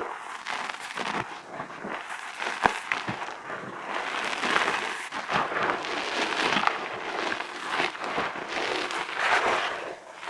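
Reformed gym chalk being crushed: a steady run of dry crunching and crackling, with one sharper snap about two and a half seconds in.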